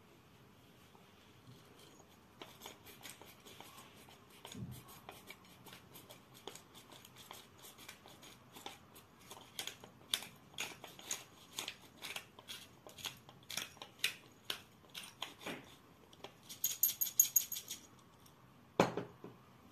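Manual pepper mill grinding black peppercorns: a long run of crisp crunching clicks as it is twisted, coming thicker and louder near the end. A single knock follows just before the end.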